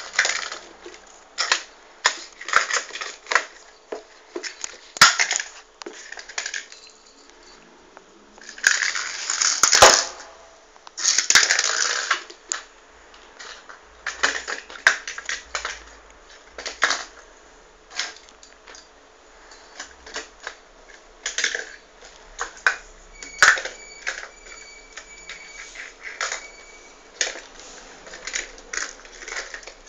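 A cat playing, batting and scratching at a tube on a tile floor: irregular taps, clicks and scrapes, with two longer scraping rustles about nine and eleven seconds in.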